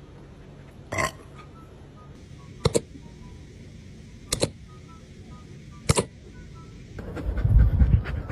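A dog hiccuping: four short, sharp hiccups at even intervals of about one and a half seconds. A louder low rumble follows near the end.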